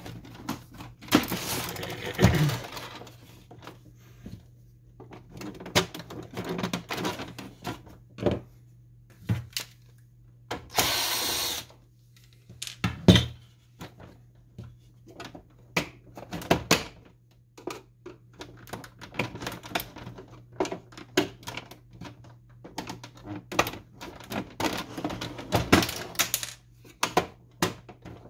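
Plastic housing and panels of an Epson WorkForce WF-2650 printer being handled during disassembly: scattered clicks, knocks and rattles of hard plastic, with one rough scrape lasting about a second about eleven seconds in. A low steady hum runs underneath.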